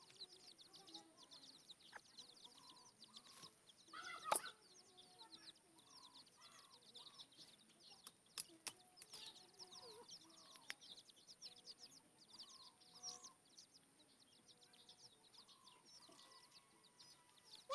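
Faint outdoor ambience: many small birds chirping without a break, with hens clucking faintly at a distance. A few sharp clicks, and one louder brief sound about four seconds in, break through it.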